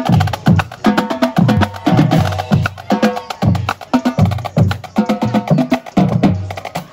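Marching band drumline playing a loud cadence as it marches: rapid sharp drum strokes over a repeating pattern of tuned bass drum hits, thinning out about six seconds in.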